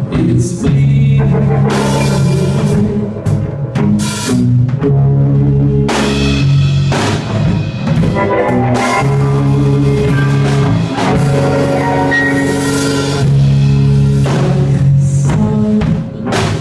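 Live rock band playing loud: a drum kit with frequent cymbal crashes over held, heavy low notes that change every second or two.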